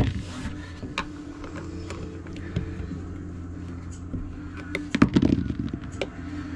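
An engine running steadily with a low hum, with scattered clicks and knocks from hand work on a plumbing hose clamp and a busier cluster of them about five seconds in.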